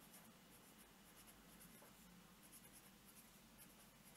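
Faint scratching of a felt-tip pen writing words on paper, a quick run of short strokes with brief gaps between them.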